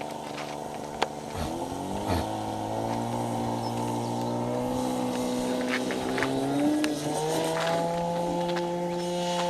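Radio-controlled model airplane engine running steadily, briefly dipping in pitch early on, then rising to a higher, steady pitch about seven seconds in as the throttle is opened.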